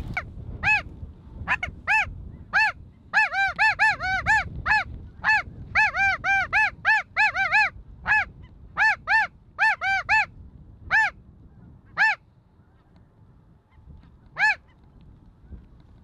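Snow goose calls: a quick run of about thirty short, high honks, each rising then falling in pitch, thickest a few seconds in, then thinning out to a last single honk near the end.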